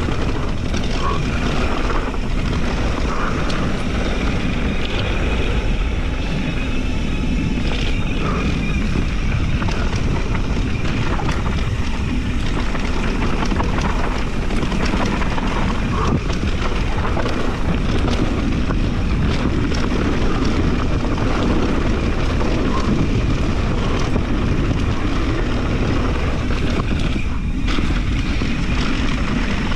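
Santa Cruz Hightower mountain bike rolling over dry, rocky dirt singletrack: steady wind rush and low rumble on the camera microphone, with the crunch of knobby tyres on loose gravel and scattered short clacks and rattles from the bike.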